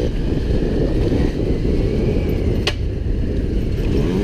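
Off-road motorcycle engine running while riding a dirt trail, its pitch rising and falling with the throttle. A single sharp click comes about two and a half seconds in.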